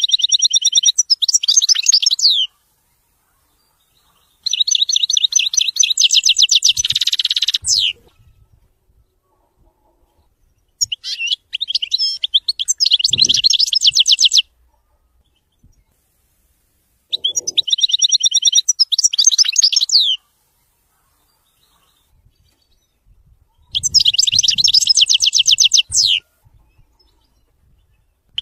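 European goldfinch singing in the style known as widani: five bouts of fast, high twittering trills, each about two to three and a half seconds long, with pauses of a few seconds between them.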